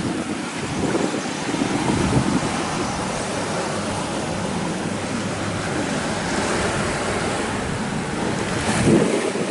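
Steady rush of wind and sea water around a sailboat under way, with wind buffeting the microphone, and a slightly louder patch near the end.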